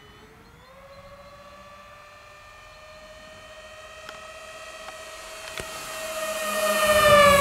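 Twin electric motors and propellers of a radio-controlled Avios Albatross HU-16 flying boat on a full-throttle pass: a steady whine that climbs in pitch about half a second in as the throttle opens, grows louder as the model approaches, and drops in pitch near the end as it flies past.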